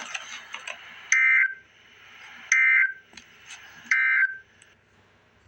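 Emergency Alert System end-of-message data tones: three short, harsh digital bursts about 1.4 s apart, which signal that the alert has ended. A hiss with clicks comes before the first burst.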